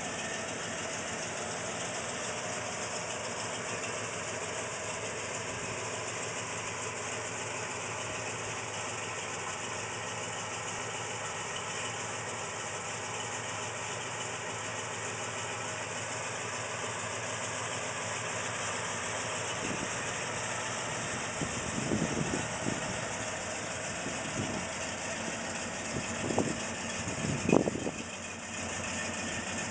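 1969 Plymouth Road Runner's 383 Magnum V8 idling steadily, with a few short, louder bursts near the end.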